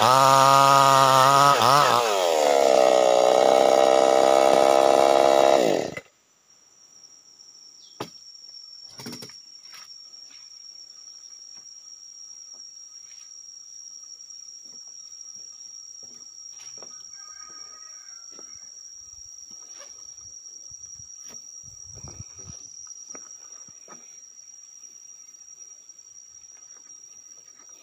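58 cc chainsaw cutting lengthwise through a durian log. It speeds up to a higher pitch about two seconds in, as the load comes off, then cuts off abruptly about six seconds in. After that a steady high insect whine, with scattered small clicks and knocks.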